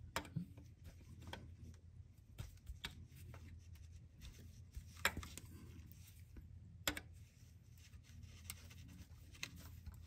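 Faint, scattered clicks and scrapes of a steel seal puller prying at the old rubber filter seal in the aluminum bore of an automatic transmission case, with a couple of sharper clicks about halfway and two-thirds of the way through.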